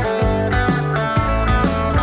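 Background instrumental music with a steady beat, about two beats a second.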